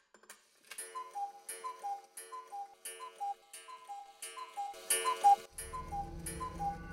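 A clock ticking, the tick and tock alternating between a higher and a lower note about three times a second, starting just under a second in. A low hum comes in near the end.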